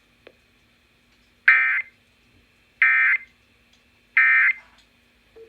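Emergency Alert System end-of-message signal over FM radio: three short, buzzy SAME data bursts about a second apart, the code that closes the alert. A faint click comes just before them.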